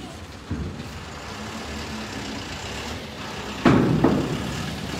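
Wooden wheel chocks and a steel bar knocking against the steel floor of a shipping container: a small knock about half a second in, then two loud, echoing knocks close together near the end, over a steady low rumble.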